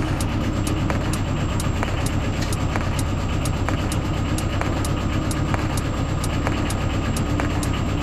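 Chinese 8 kW diesel air heater running: a steady rumble from its combustion fan and burner, with regular ticking typical of its fuel dosing pump. A faint high whine comes in about half a second in.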